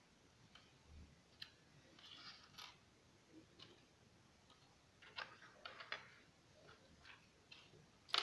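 Lego plastic pieces being handled and pressed together by hand: faint scattered clicks and snaps, a quick cluster about five seconds in, and the sharpest snap at the very end.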